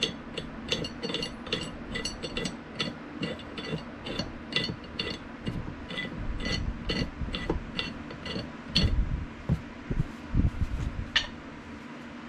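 Pipe wrench being worked by hand: irregular metallic clicks and ticks, two or three a second, as the knurled adjusting nut is spun to run the hook jaw in and out and work in the fresh oil. A few heavier metal knocks come later on.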